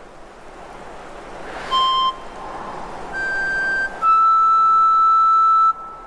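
Short bamboo flute (dizi) played in separate clear notes: a brief note about two seconds in, a higher note a second later, then a long held note that stops shortly before the end.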